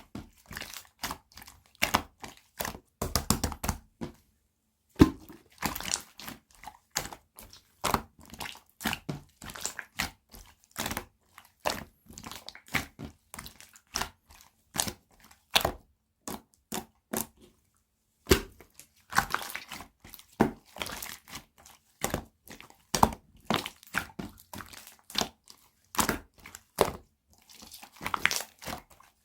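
Pinkish clear slime with gold pearl being squished and pressed, giving a fast, irregular run of sharp clicks and pops, with two short pauses about four and eighteen seconds in.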